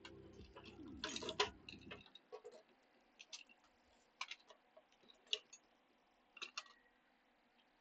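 Scattered light clicks and taps of hand tools being handled and set down, a cluster of them about a second in, then single ticks about once a second; background music ends about two seconds in.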